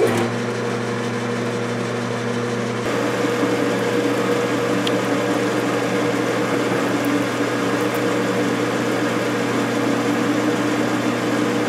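Enco metal lathe running under power feed, taking a turning cut on a steel shaft: a steady machine hum with a few whining gear tones. It comes in abruptly at the start, and its tone shifts slightly about three seconds in.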